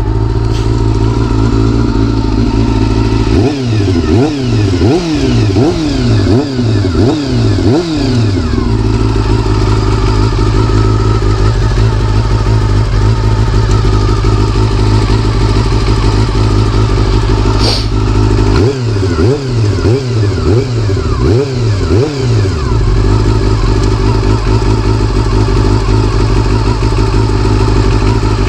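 Honda CBR400RR's inline-four engine idling steadily, with two runs of short, quick throttle blips, the revs rising and dropping six or seven times in each run.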